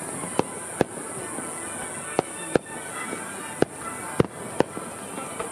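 Aerial firework shells bursting: about eight sharp bangs, several in quick pairs, over a steady high hiss.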